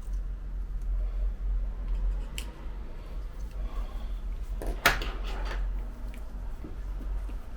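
Small repair tools clicking and scraping against the parts of an opened iPhone 11 Pro Max, with a cluster of sharp clicks and one loud snap about five seconds in, over a steady low hum.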